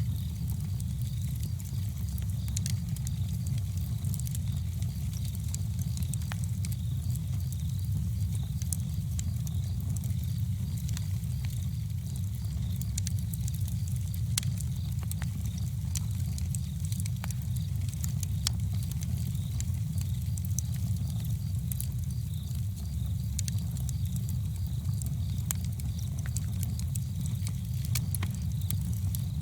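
Campfire burning, with frequent small irregular crackles and pops over a steady low rumble.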